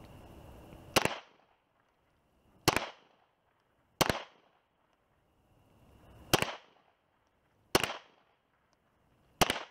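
Six shots from a semi-automatic pistol, fired one at a time at a slow, aimed pace, roughly one and a half to two and a half seconds apart.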